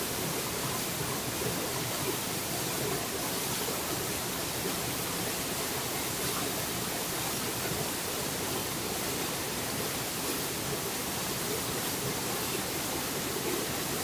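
Waterfall of about 25 metres cascading over rock into a pool: a steady, unbroken rush of falling water.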